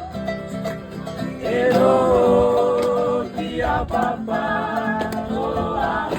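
Music: a singing voice holding long, wavering notes over a plucked-string accompaniment.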